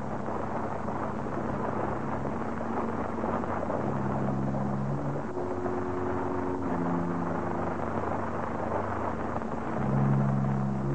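A dense rumble of many horses galloping, under low held notes of the film's score that change pitch every second or so. The rumble swells near the end.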